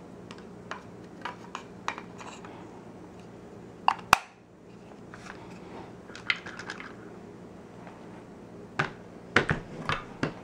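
Clicks and knocks of an AR rifle and its Magpul MOE pistol grip's spare bolt and firing pin storage insert being handled: hard plastic and metal parts tapping and snapping together. The loudest pair of knocks comes about four seconds in, and a quick run of clicks comes near the end.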